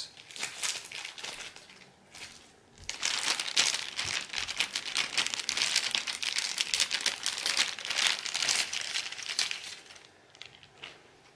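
Plastic packaging crinkling as a small packet of spare drone propellers is handled and unwrapped, in two spells of dense crackling with a short pause between them.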